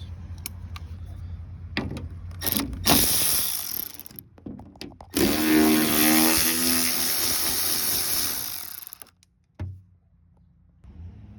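Power driver with a T27 Torx bit running in bursts, backing out the bolts that hold a door lock mechanism. There is a short run about three seconds in, then a longer one of about four seconds with a steady motor whine, after a few light clicks at the start.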